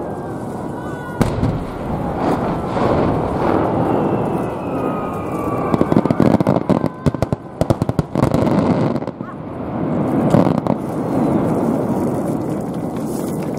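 Large aerial fireworks shells bursting overhead in a continuous rumble of booms, with a rapid run of sharp crackling bangs about six to eight seconds in.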